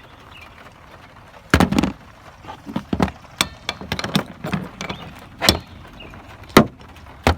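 Irregular sharp clicks and knocks of hand tools and hands working on a loose windshield wiper arm and its pivot nut.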